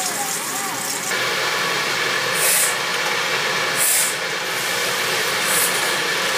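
Hot water poured from a saucepan into a hot cast-iron wok to rinse it, hissing and sizzling steadily from about a second in, with three brief louder sizzling flares.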